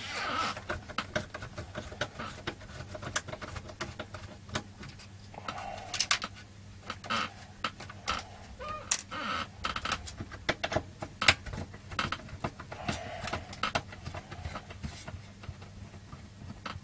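Scattered clicks and rattles of plastic connectors, wiring and metal chassis parts being handled inside an opened CRT monitor, over a low steady hum.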